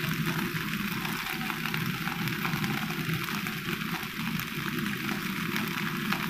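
Banana-leaf parcels of wet anchovies sizzling and crackling as they char on a wire grill over an open flame: a steady sizzle dotted with many small crackles.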